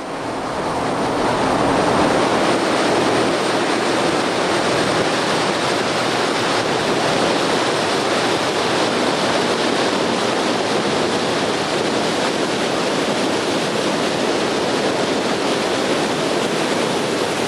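Steady rush of water and wind heard from a moving boat crossing a swirling tidal current, fading in over the first couple of seconds.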